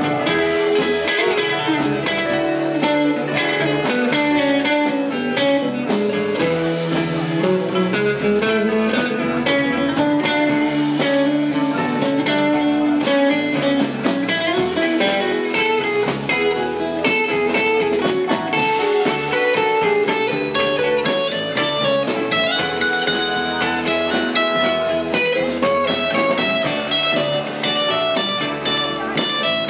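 Live rock band playing an instrumental passage: electric guitar, keyboards and drums.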